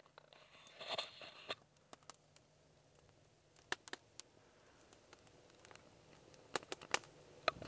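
Small twig campfire crackling faintly, with a few sharp, scattered pops. There is a brief rustle about a second in.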